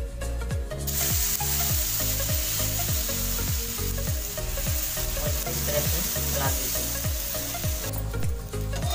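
Gram-flour (besan) chilla batter sizzling in hot oil on an iron tawa. The hiss starts about a second in and cuts off near the end. Background music with a repeating bass pattern plays underneath.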